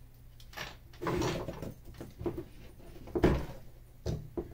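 Pliers clicking against the metal injector retaining clips and the fuel rail knocking on a wooden bench as the clips are worked off: a series of separate clicks and knocks, the loudest about three seconds in.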